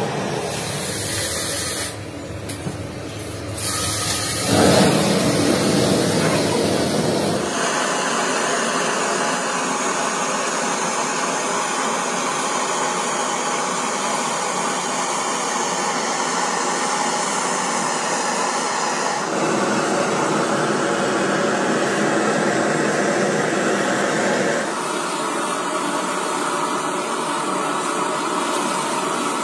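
Steady hissing, whirring machine noise from shock absorber fabrication work. The pitch and character change abruptly several times.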